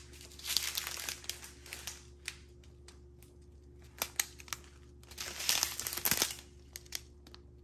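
Thin plastic crinkling as a strip of small zip-top bags of diamond-painting drills is handled, in two spells of rustling with a few sharp clicks between.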